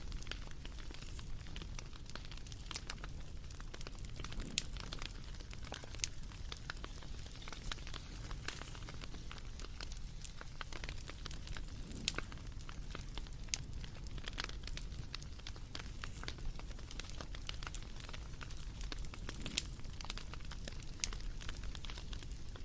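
Wood fire crackling: a steady low rush of burning with scattered sharp pops and snaps, a few of them louder.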